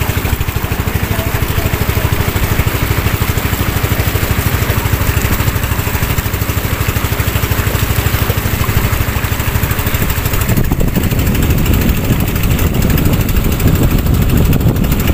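Small motorized outrigger boat's engine running steadily underway with a fast, even beat, and water rushing and splashing along the hull, louder from about ten seconds in.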